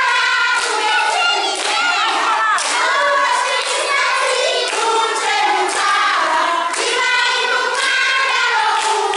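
A group of young children singing together, with hand claps.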